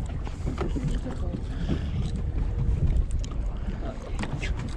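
Wind buffeting the microphone aboard an open fishing boat: a steady low rumble, with a few light clicks near the end.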